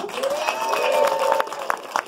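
Audience applauding, with a drawn-out cheer from the crowd in the first second, then scattered hand claps.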